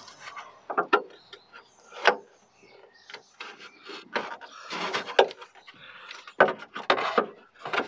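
Wooden hammer handle knocking and scraping inside a Ford Mondeo's steel boot lid as it is levered against the panel to push a dent out from behind. The knocks come irregularly, mixed with short rubbing scrapes.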